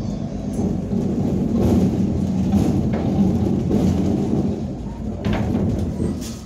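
Inside a moving ZiU-682V trolleybus: a loud, low rumble of the body and running gear over the road, with a few knocks and rattles from the bodywork as it jolts.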